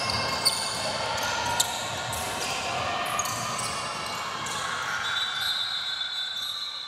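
Basketball bouncing on an indoor court during a game, with sharp knocks about half a second and a second and a half in, over the chatter of players and spectators. A high steady tone is held for the last second and a half or so.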